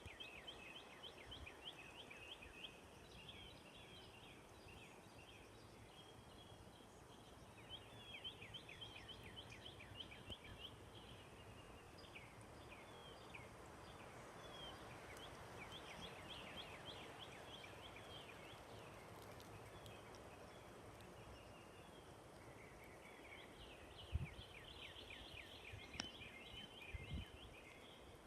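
Faint outdoor ambience with small birds chirping in repeated quick trills of short, falling notes, and a couple of low thumps near the end.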